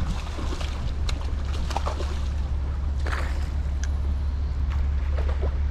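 Steady low rumble with water sloshing and splashing as a hooked fish thrashes at the surface beside a small boat, with a few faint clicks.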